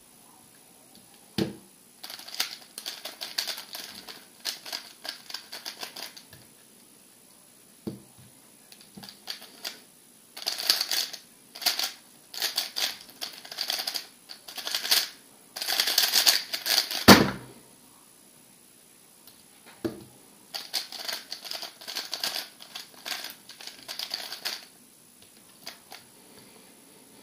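MoYu RS3 M 2020 plastic 3x3 speedcube being turned fast: bursts of rapid clicking and clacking. The longest burst, the fastest one, ends in a single loud thump about seventeen seconds in.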